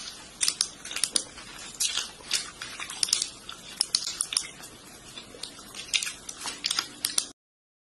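Typing on a laptop keyboard: quick, irregular key clicks that cut off suddenly shortly before the end.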